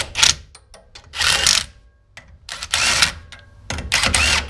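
Cordless drill with a socket spinning lug nuts down the wheel studs in four short bursts, each with a rising motor whine, snugging the nuts to hold the brake rotor flush without final torque.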